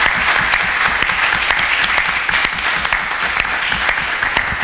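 Small seated audience applauding steadily, a dense patter of many hands clapping.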